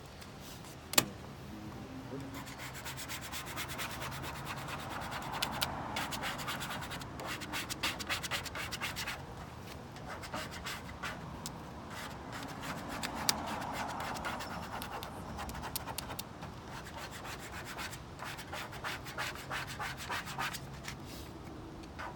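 An adhesive vinyl stripe being rubbed down onto a car's body: a long run of quick, scratchy rubbing strokes, after a single sharp click about a second in.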